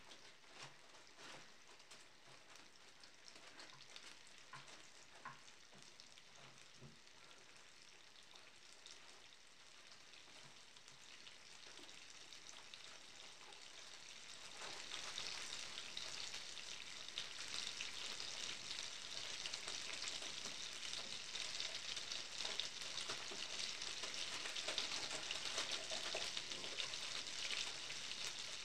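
A block of butter melting and sizzling in a frying pan, with sparse faint crackles at first and a denser, louder sizzle from about halfway through as the butter foams.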